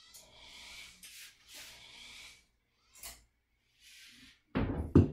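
Soft rustling of twisted plastic-bag cord being handled, a short click about three seconds in, then two heavy knocks near the end, the loudest sounds.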